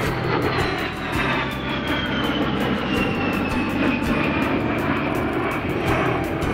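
A-10 Thunderbolt II's twin TF34 turbofan engines whining over a steady rumble as it flies past, the high whine sliding steadily down in pitch.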